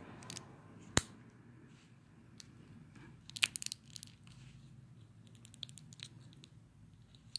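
Hard plastic clicks from an Incredible Crash Dummies action figure being worked by hand as its button is pressed: one sharp click about a second in, a quick cluster of clicks around three and a half seconds, then a few faint ticks.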